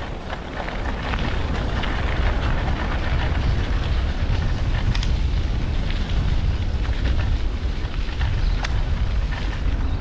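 Wind buffeting the camera's microphone during a bicycle ride, a heavy low rumble, with a gritty crackle of the bike's tyres rolling over winter pavement. It gets louder about a second in.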